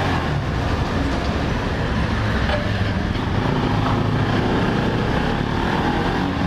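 Motorcycle engine running at a steady pace while riding, its low hum under an even rush of wind and road noise.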